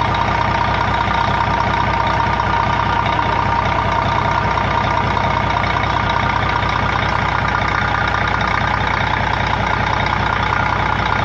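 Doosan DX12 diesel engine idling steadily just after an overhaul, with a steady high whine over the engine note.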